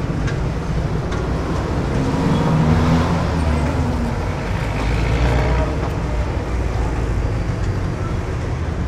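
Steady low rumble of motor traffic, swelling with a passing engine about two to three seconds in and again around five seconds.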